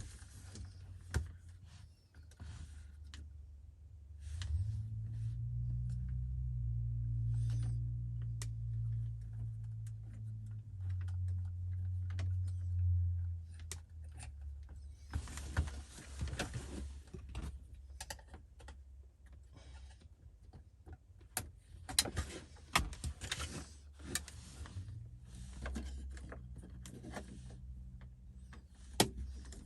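Scattered clicks and light rattles of car interior parts and connectors being handled. A low hum runs for about ten seconds starting about four seconds in, changing pitch a couple of times.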